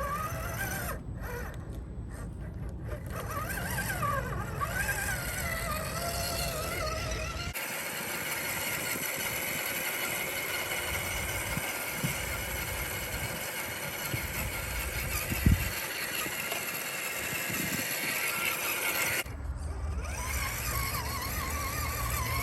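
Electric motor and gear whine of an RC scale crawler truck driving, the pitch wavering up and down with the throttle. About seven seconds in the sound changes abruptly to a steadier, hissier, higher whine, which switches back to the first sound near the end.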